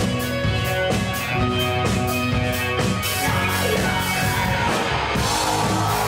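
Live rock band playing: electric guitars and a drum kit, with the drums keeping a regular ticking cymbal beat that about three seconds in opens into a continuous cymbal wash.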